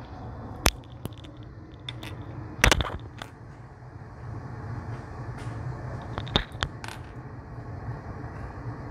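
Covered wok steamer on a gas burner, heat on: a steady low rush of flame and simmering water. A few sharp clicks and taps scattered through it, the loudest about two and a half seconds in.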